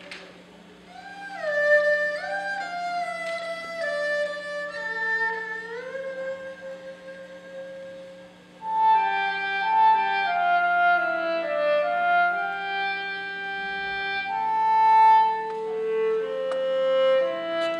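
Chinese traditional orchestra playing: a quieter bowed-string melody with sliding notes, then the full ensemble comes in about halfway, louder, with many sustained notes together.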